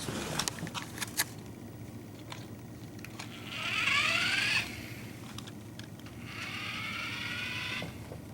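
Small electric motor of a toy car whining in two bursts, rising in pitch each time as the car speeds up; the first burst is louder. A few light clicks come at the start.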